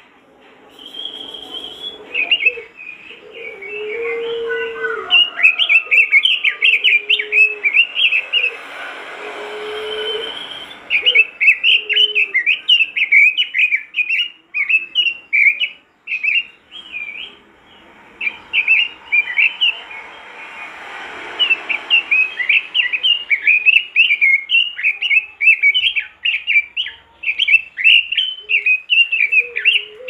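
Red-billed leiothrix (Pekin robin) singing in full, continuous song: long runs of rapid, high chattering notes with brief pauses, and some lower short notes in the first third.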